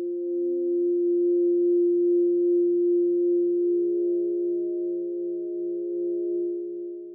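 Film-score drone: several steady electronic tones held as one chord, with a soft low note pulsing about three times a second underneath. It swells, then fades out at the very end.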